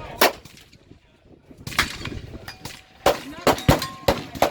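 Irregular gunshots from several guns on a shooting range: one shot, a short lull, then a quick run of shots about two seconds in. Some shots are followed by a brief ringing tone, like steel targets being hit.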